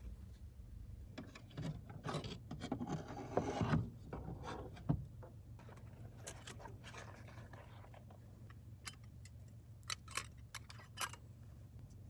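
Camping gear being handled: rustling and scraping as a padded soft case is handled, then a few light clicks and taps from a folding wire-framed cup holder. A low steady hum lies underneath.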